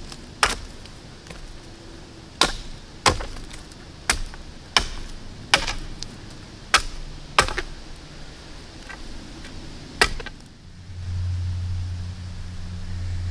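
Carpenter's axe chopping a point onto the end of a freshly cut green sapling post, about nine sharp, separate strikes spread over ten seconds. A steady low hum comes in near the end.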